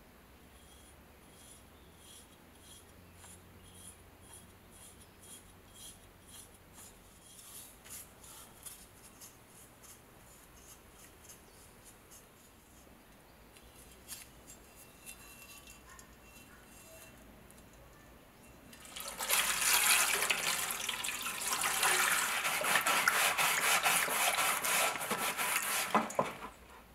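Wet scrubbing of a pitted, blackened steel knife blade with an abrasive sponge block in water in a stainless steel tray: a loud, rapid rasping rub that starts about 19 seconds in and stops about seven seconds later. Before it, only faint quick ticks.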